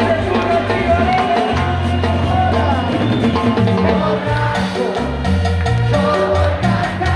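Live band music with a drum kit keeping a steady beat, a bass line and a sung melody.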